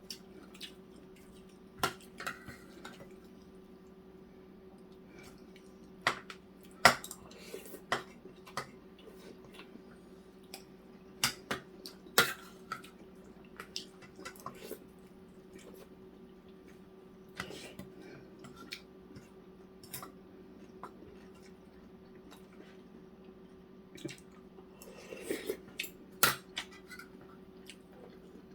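Utensils clinking and tapping against dishes at irregular intervals during a meal, with soft eating sounds. A steady low hum runs underneath.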